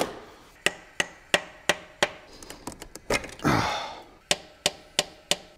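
A hand tool working on the BMW M70 V12's valve gear during valve stem seal work: sharp metallic clicks, about three a second, a run of six and then, near the end, four more. A short rushing noise comes between the two runs.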